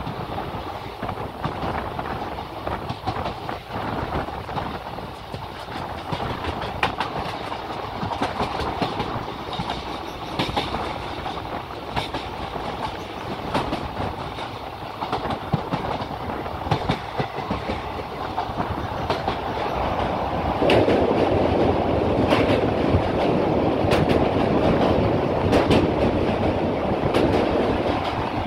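A passenger train's coaches running at speed, heard from the open doorway: a continuous rumble with frequent clicks of the wheels over rail joints. About three-quarters of the way through it turns suddenly louder and stays so as the coach rolls onto a steel girder bridge.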